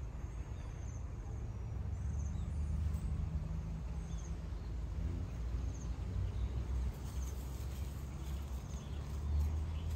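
Outdoor yard ambience: a steady low rumble with faint, short, high chirps recurring about once a second.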